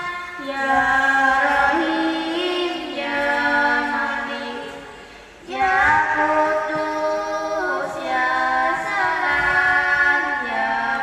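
A girl singing through a microphone in long, held notes that slide and ornament between pitches. She pauses for breath about five seconds in, then starts a new phrase.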